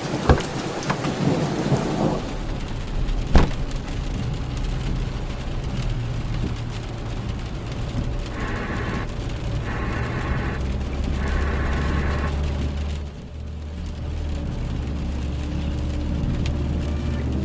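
Rain falling steadily, with a sharp thunder crack about three seconds in and a low rolling rumble underneath that grows stronger after the middle. Three short pitched tones sound between about eight and twelve seconds in.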